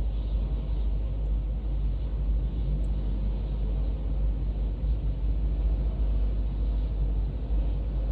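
Steady low rumble, heaviest in the deep bass, with no sudden changes.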